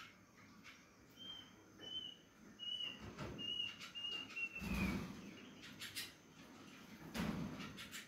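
Canary giving a run of about seven short, high, evenly spaced calls, the last few sliding down in pitch. Two dull thumps follow, about halfway through and near the end.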